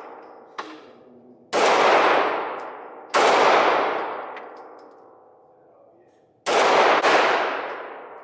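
Semi-automatic pistol fired four times, each shot followed by a long echoing decay off the range's hard walls. The first two shots come about a second and a half apart; after a pause of about three seconds come two quick shots half a second apart.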